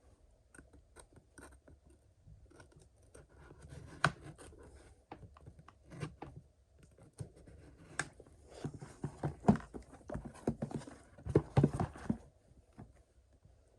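Pocketknife blade slicing and scraping through packing tape on a cardboard box: irregular scratches, slits and sharp clicks, busiest and loudest in the last few seconds.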